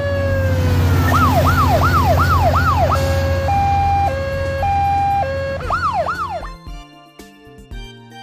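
Police van siren: a falling tone, then a quick run of rising-and-falling yelps, then a two-tone hi-lo alternation, then two more yelps, over a steady low engine rumble. Background music takes over near the end.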